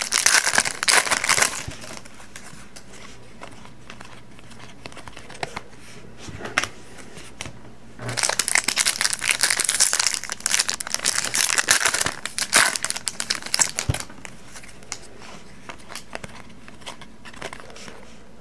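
Trading-card pack wrappers being torn open and crumpled by hand. There is a short spell of crinkling at the start and a longer one from about eight to twelve seconds in, with quieter handling of cards between.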